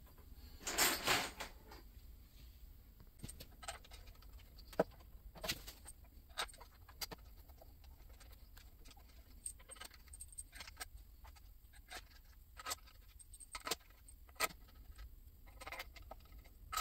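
Small steel bolts clicking against each other and against an aluminium transmission valve body as they are handled and set into its bolt holes. Scattered light metallic clicks, with a brief jangle about a second in.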